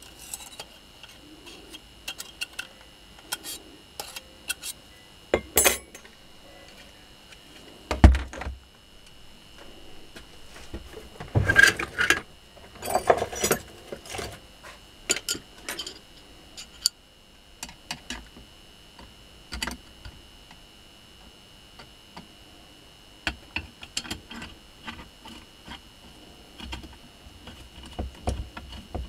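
Scattered metallic clinks and knocks of a washing-machine motor and tools being handled during reassembly, with one heavy thump about eight seconds in as the motor is set down on the bench, and a burst of clattering around twelve seconds in.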